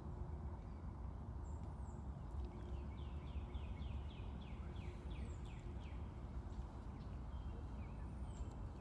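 Small birds calling over a steady low outdoor hum: a short, high whistled note repeats about every three seconds, and a quick run of about ten descending notes comes about three seconds in.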